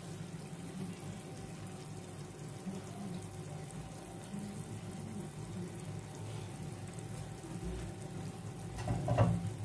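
Thick mushroom curry simmering in an open pan, a soft steady bubbling, freshly uncovered after five minutes of cooking under the lid. A faint steady hum runs underneath.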